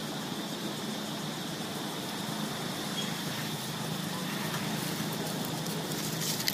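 A steady low mechanical hum under even background noise, with no distinct events.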